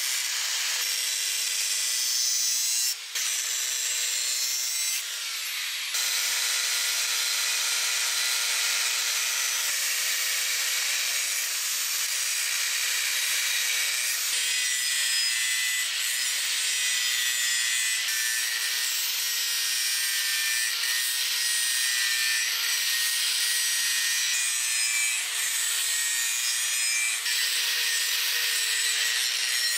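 Angle grinder with an abrasive disc grinding a steel cleaver blade forged from rebar: a steady, harsh grinding hiss over the motor's whine, changing abruptly a few times.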